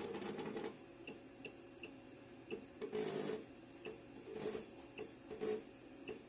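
Short high beeps from a pattern tacker's programming panel as its arrow keys are pressed, coming irregularly about every half second to second. A few louder brief bursts of rustling noise break in, the biggest about three seconds in.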